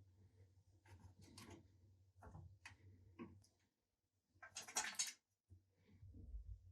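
Faint handling sounds: a few light clicks and taps, then a brief, louder scraping rub a little past halfway.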